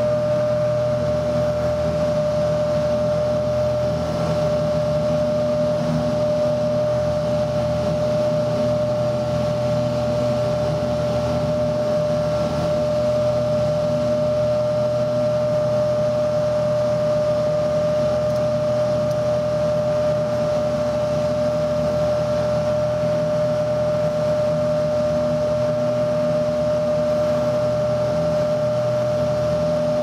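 A light propeller aircraft's engine running at a steady speed, heard from inside the cabin. A strong constant hum sits over a lower engine note.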